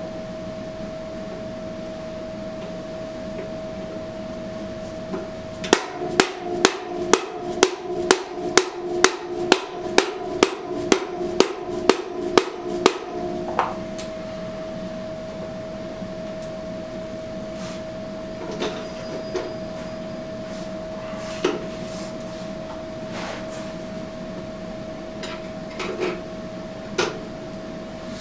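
A hammer striking metal in a steady run of about seventeen blows, a bit over two a second, with a ringing note, then stopping; a few scattered knocks and clinks of tools follow. A steady hum runs underneath.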